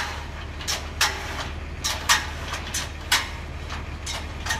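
Aluminium extension ladder being extended by its hauling line: irregular sharp metal clanks and clicks as the sliding section runs up the rungs, over a steady low hum.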